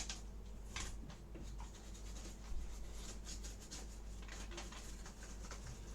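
A bristle brush scrubbing dust off laptop parts in a run of short, irregular strokes, a faint scratching and rubbing.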